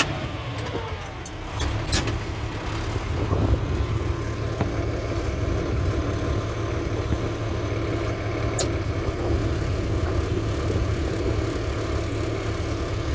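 Tractor engine running steadily, heard from inside the cab, with a couple of short clicks; the manure spreader's beaters are not yet switched on.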